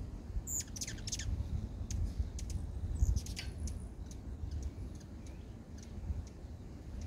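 Birds chirping: many short, sharp, high chirps, with two quick runs of falling notes about half a second in and again about three seconds in, over a steady low rumble.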